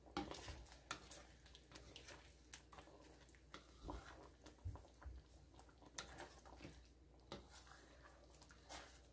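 Faint clicks and light scrapes of a utensil stirring a thick cream sauce in a metal wok, coming at irregular moments, with a couple of soft knocks in the middle.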